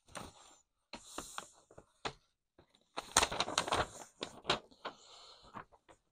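Paper instruction sheets rustling and crinkling as they are handled and unfolded, in irregular bursts with small crackles, the busiest stretch about halfway through.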